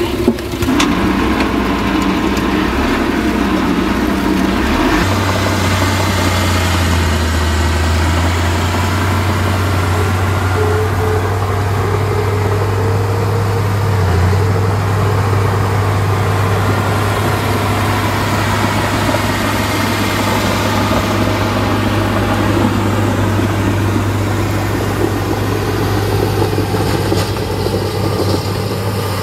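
Heavy diesel engine of earthmoving machinery running steadily. About five seconds in, its sound settles into a strong, steady low hum.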